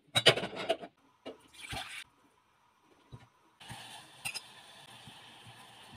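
Steel cooking pot clattering as it is set down on a gas stove's burner grate, with water sloshing inside, and a shorter scrape after it. About three and a half seconds in a steady hiss sets in, broken once by a sharp click.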